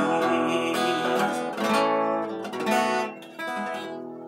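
Acoustic guitar strummed without singing, closing a song. The last chord, about three and a half seconds in, is left ringing and slowly fades.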